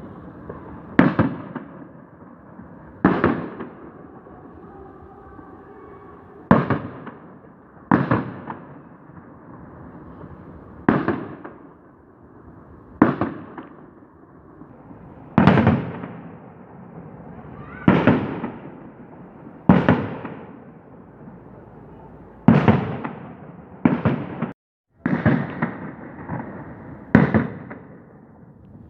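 Festive fireworks display: shells bursting one after another, about a dozen sharp bangs roughly every two seconds, each followed by a rolling echo that dies away.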